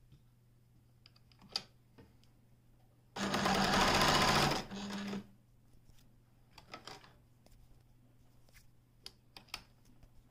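Pfaff Creative 1469 computerized sewing machine stitching through fabric: one run of about a second and a half, then a short, quieter second burst. A few sharp clicks come before and after the stitching.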